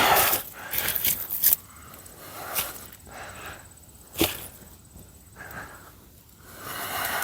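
Digging in loose garden soil with a hand tool: irregular scraping and swishing of earth, with a few sharp knocks.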